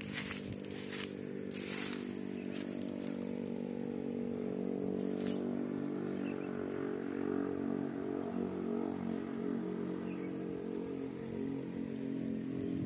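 A motorcycle engine running steadily at an even, low pitch, with a few soft clicks or footsteps in the first couple of seconds.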